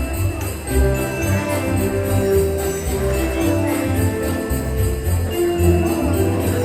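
Christmas music with sleigh bells shaken in a steady beat over a bass line and sustained melody notes.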